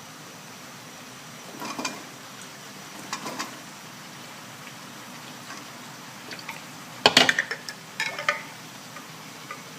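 A spoon and dish clinking and scraping against a wok in a few short bursts as chopped carrots are added, the loudest clatter about seven seconds in.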